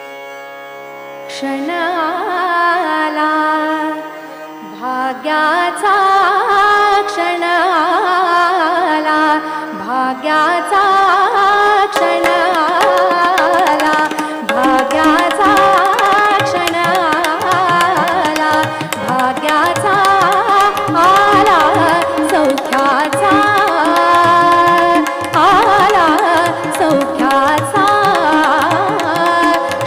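Natya sangeet (Marathi stage song) performed live: a singer with harmonium and tabla accompaniment. It starts softly and becomes fuller and louder about a second and a half in.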